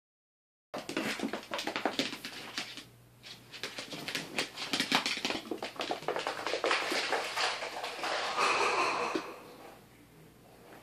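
Pot-bellied pig running back and forth on a hardwood floor, her hooves clicking rapidly, mixed with her quick grunting "cuacuacua" noises.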